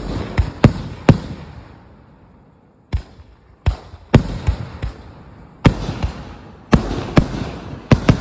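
Aerial fireworks shells bursting overhead in an irregular string of about a dozen loud bangs, each trailing off as it fades. The bangs come in three clusters, with a lull of about two seconds after the first cluster.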